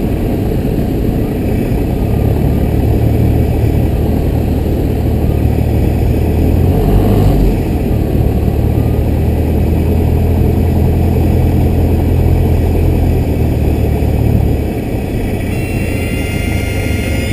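Cessna 172S's Lycoming four-cylinder engine and propeller droning steadily in the cabin during the landing approach. The drone drops noticeably in level about fifteen seconds in.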